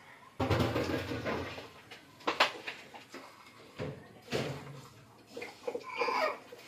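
Wooden spatula stirring and scraping uncooked rice and lentils in a pot, in a series of irregular strokes.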